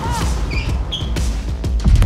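Soundtrack music with a heavy bass beat. Over it, three short high squeaks in the first second: volleyball shoe soles squeaking on an indoor court floor.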